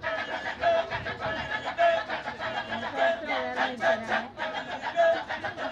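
Kecak chorus: a large group of men chanting in rhythm, rapid repeated 'cak' pulses with a sung line held on repeated notes over them.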